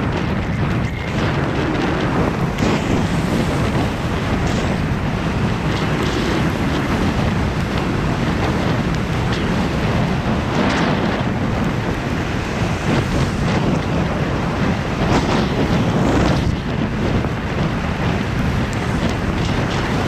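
Heavy wind buffeting on the microphone of a handlebar-mounted camera on a moving bicycle, mixed with the hiss of tyres on wet asphalt. It is a loud, steady rush with no engine note, with a few brief stronger gusts.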